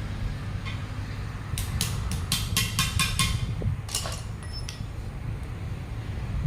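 A quick run of sharp knocks, about eight in under two seconds, then a couple more, over a steady low rumble.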